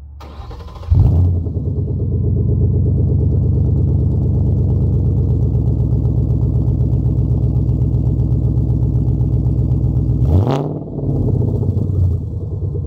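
2011 Mustang GT's 5.0 L Coyote V8, heard at the exhaust tips through a muffler delete, fires up about a second in and settles into a steady idle. Near the end it is given one quick rev, rising in pitch and dropping straight back to idle.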